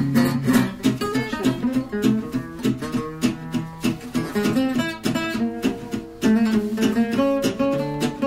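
Background music led by acoustic guitar, with a quick run of plucked and strummed notes.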